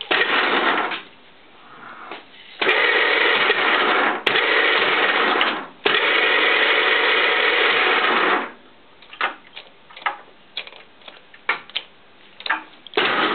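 Soviet Stanko 1M63 lathe running in bursts that start and stop abruptly: a short one, then two long runs of about three seconds each, then a quick string of short jogs near the end, as the machine is switched on and off from its newly made joystick control.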